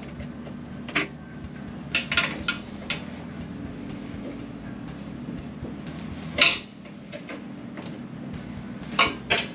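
Hand tools clicking and clinking on the metal of a motorcycle's rear brake linkage while the clip and clevis pin are being worked off. There are a few scattered clinks, the loudest about two thirds of the way through and two close together near the end, over a low steady hum.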